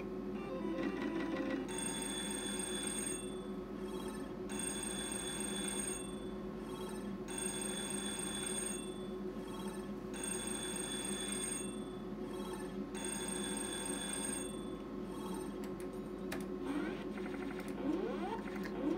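Novomatic Sizzling Hot slot machine ringing its electronic win bell after a 3000-credit line win, in about five bursts of a second and a half each with short gaps between, over a steady low hum. Near the end come quick rising electronic sweeps as the red/black card gamble feature comes up.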